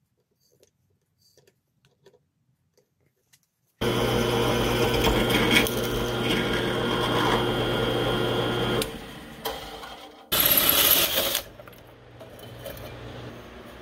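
A few faint clicks, then a drill press starts about four seconds in and runs steadily for about five seconds, its motor humming as the bit bores into steel square tubing. After a short lull, a cordless drill cuts into the steel tube for about a second with a loud hiss.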